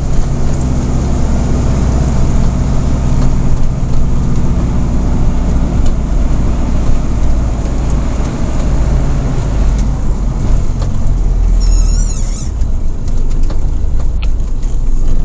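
Camper van driving, heard from inside the cab: a steady low engine hum with road noise. A brief high warbling chirp about twelve seconds in.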